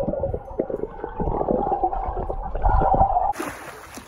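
Pool water heard through an underwater camera: muffled bubbling and churning as a swimmer tumbles through forward rolls. Just over three seconds in, the sound suddenly opens up into brighter splashing above the surface.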